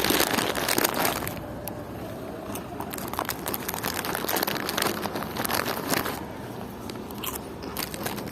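Flaming Hot Wotsits crunchy crisps being handled and eaten: irregular crunching and crackling with packet crinkling, thinning out for a while after the first second, over a steady low background rumble.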